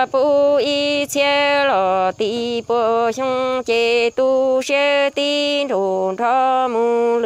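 Hmong kwv txhiaj sung poetry: a single voice singing short syllables, each held on a level pitch and stepping between a few notes, with brief breaks between them. Phrases end by dropping to a lower note.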